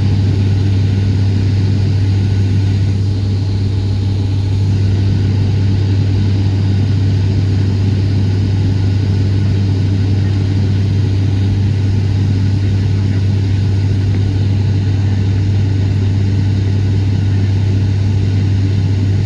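Airliner cabin noise in flight: a steady, unchanging engine and airflow drone with a strong low hum.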